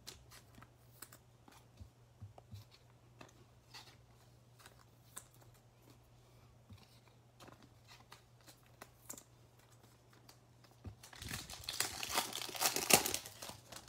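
Faint scattered clicks and taps of trading cards being handled and set down, then about eleven seconds in a foil trading-card pack is torn open with a loud crinkling and tearing lasting about two seconds.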